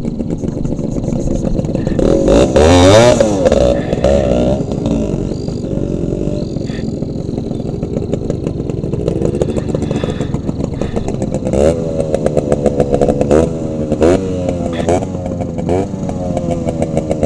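Two-stroke motorcycle engines running. One engine revs hard about two seconds in, then gives a run of quick throttle blips, each rising and falling, from about eleven seconds to the end.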